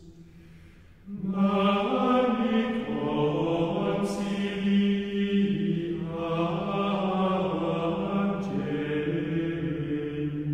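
Liturgical chant: voices singing long held notes that move slowly from pitch to pitch. A softer held note gives way about a second in to a fuller, louder phrase.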